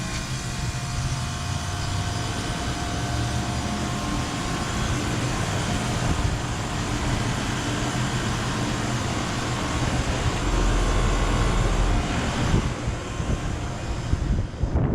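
Lennox commercial air conditioner running with a Copeland scroll compressor: a steady whoosh from the condenser fan over a constant hum.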